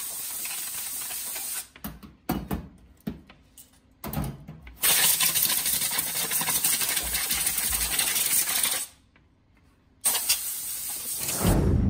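A grinder spins a red abrasive disc against an aluminium Honda Dio AF18 crankcase half to clean its surface, giving a steady high whine over a hiss. It runs in three spells, stopping about a second and a half in and again about nine seconds in, with knocks from the part being handled in the first pause and a thump near the end.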